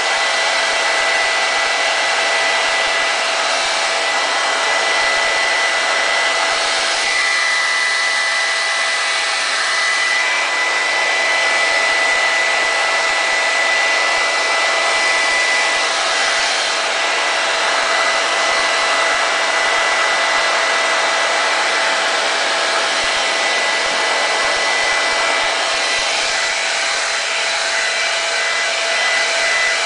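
Handheld hair dryer blowing steadily: a continuous rush of air with a steady high tone in it, running without a break.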